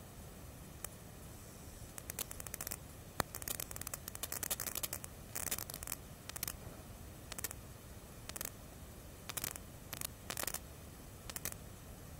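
Makeup brush being worked over the face, giving short scratchy rubbing sounds in irregular clusters.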